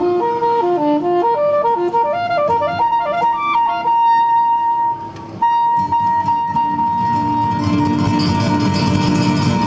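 Live concert music: a quick run of melody notes, then one long held high note while the fuller ensemble comes in underneath about halfway through and swells near the end.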